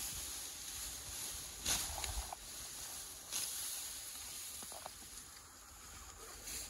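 Rustling outdoors: two brief hissing swishes, about two seconds and three and a half seconds in, over a low rumble of wind on the microphone, with a couple of faint short chirps.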